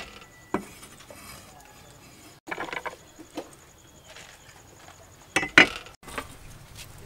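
Scattered light knocks and clicks of garlic being prepared with a cleaver on a wooden chopping block: a few quick taps, then a louder pair of knocks about five and a half seconds in.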